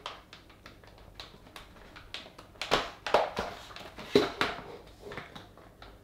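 Butter knife prying at the clipped plastic rear cover of a Dyson V7 cordless vacuum: a run of small clicks and scrapes of metal on plastic, with a few louder plastic clicks in the middle as the clips are worked loose.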